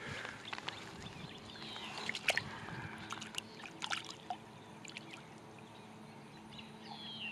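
Light splashing and dripping water as a largemouth bass is let go into shallow, weedy water at the lake edge, with the loudest splash about two seconds in and a few smaller splashes and drips after it.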